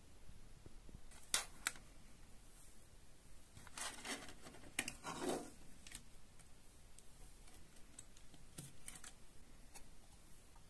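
Clear plastic CD jewel case being handled: two sharp clicks a little over a second in as it is opened, then a stretch of plastic clicking and scraping, and a few more clicks as the disc is pried off the case's centre hub.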